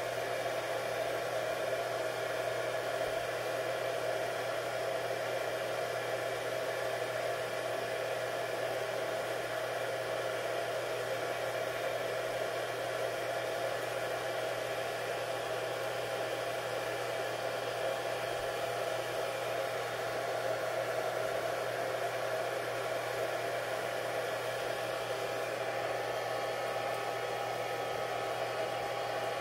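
A small electric appliance running steadily, a continuous whirring hiss with a steady hum under it.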